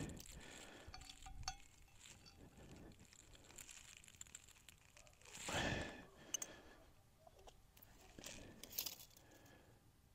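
Faint handling noise as a steel post bracket is worked on a concrete foundation wall: a few sharp small clicks and three brief rustling swells, the loudest about halfway through.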